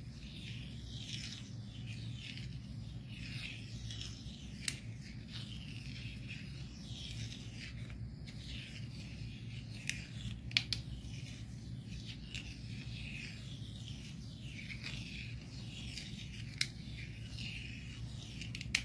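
Adhesive craft vinyl being peeled off its backing sheet in long thin strips: a continuous crackly rustle, broken by a few sharp ticks, over a steady low hum.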